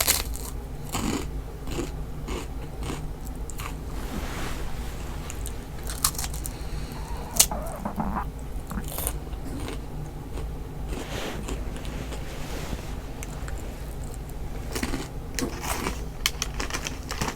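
A stomach growling and gurgling, picked up close, among many small clicks and crackles.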